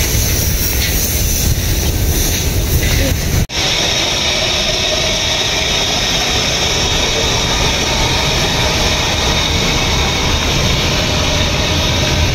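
Steady outdoor street noise with a heavy low rumble, traffic and the general din of a town car park. It breaks off for an instant about three and a half seconds in.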